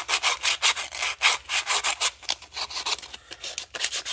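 Sandpaper rubbed quickly up and down by hand on a plastic model kit part, sanding away mold flash, in a rapid run of even rasping strokes that grow lighter near the end.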